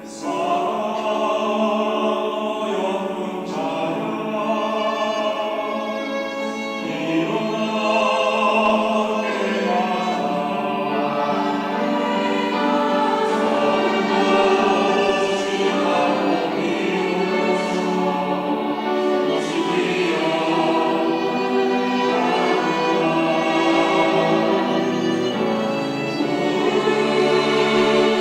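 Church choir singing a Sunday anthem in sustained, full-voiced harmony.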